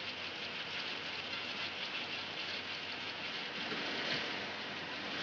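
Steady hissing whir of a 1960s Honeywell H200 computer room, its cooling fans and tape drives running, with a light knock about four seconds in as a tape reel is fitted onto a drive.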